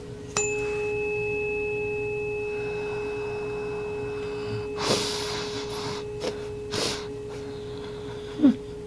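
Tuning fork struck once, then ringing a steady, slowly fading tone held close to the listener's ear. Its higher overtones die away within a few seconds. Two brief rushing noises come midway, and a short low sound comes near the end.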